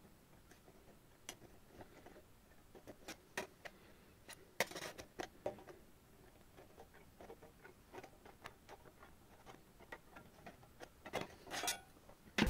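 Old pair of scissors cutting thin brass sheet: faint, irregular snips and clicks as the blades bite through the metal, a few louder ones about halfway and near the end.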